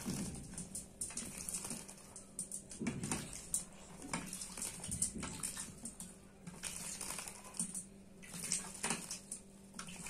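A common myna bathing in a steel water bowl, splashing water about with its wings in irregular bursts, with light taps and clicks against the bowl and the wet newspaper.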